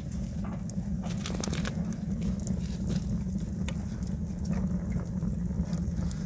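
Open wood fire in a metal burner flaring up under a wooden slab to char its face, crackling with scattered sharp pops over a steady low rumble.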